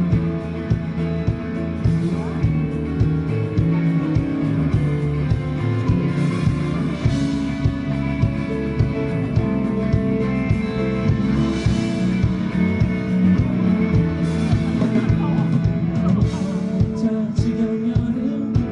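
Live pop-rock band playing a section between sung lines: a steady drum beat with cymbal crashes every few seconds, over electric guitars and bass.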